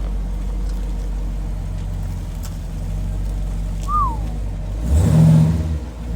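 Car engine idling steadily, with a short high squeak falling in pitch about four seconds in and a brief louder swell of engine sound about five seconds in.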